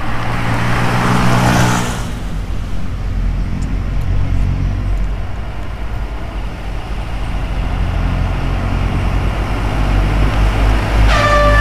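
Coal dump trucks driving by: a low engine rumble and tyre noise, with one vehicle passing close in the first two seconds. Near the end a truck's ship-style air horn starts a loud, steady blast that falls slightly in pitch.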